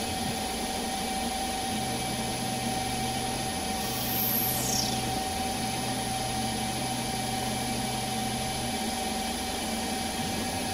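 Small CNC lathe's inverter-driven spindle running with a steady whine while the tool takes a light facing cut across a plastic bar. A lower hum comes and goes in three stretches between about two and nine seconds in, and a brief high whistle falls in pitch about four seconds in.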